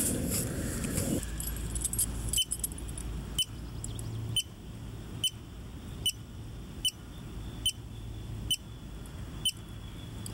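A series of short, sharp ticks, evenly spaced about once a second, over a low steady hum; a louder rumbling noise fills the first second or so.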